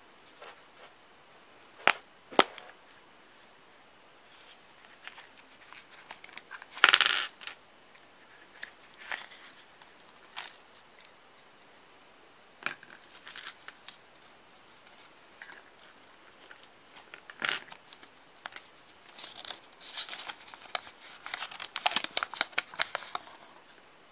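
A yellow plastic Kinder Surprise capsule snapped open with two sharp clicks, then small hard plastic toy pieces and their paper wrapping clattering and crinkling as they are tipped out and handled. A dense run of rustling and tapping follows near the end.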